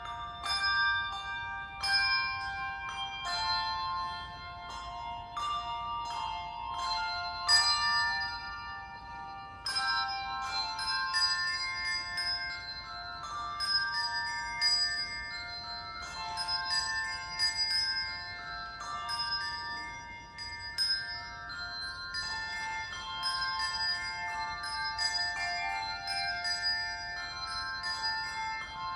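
Handbell choir playing a piece: many bells struck in melody and chords, each note starting sharply and ringing on into the next.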